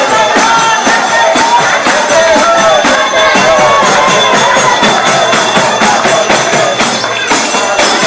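Nepali panche baja band playing: a shehnai's wavering reed melody over steady drum beats and clashing cymbals.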